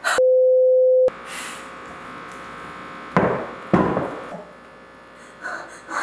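A loud edited-in beep, one steady pure tone, for about a second at the start. Then a low hum, with two heavy thumps about three seconds in as sticky bread dough is kneaded on the counter.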